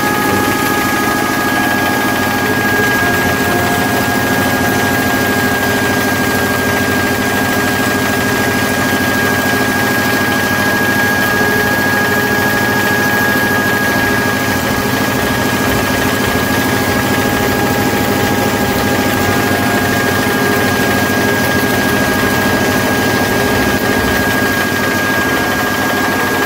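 Multipurpose grinding mill running steadily while grinding coffee beans, a constant machine drone with a steady high whine over it.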